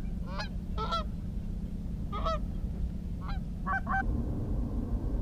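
Canada geese honking: about seven short, clipped honks in loose groups, the last few close together about four seconds in, over a steady low rumble.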